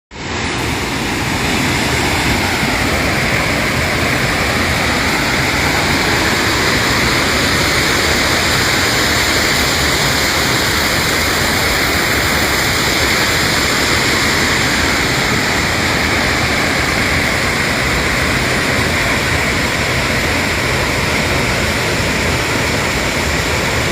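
Waterfall: water falling and crashing into a pool, a loud, steady rushing noise.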